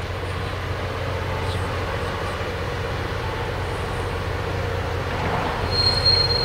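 Oncoming train with a low rumble that grows steadily louder. Near the end a high, steady squeal of wheels on rail sets in.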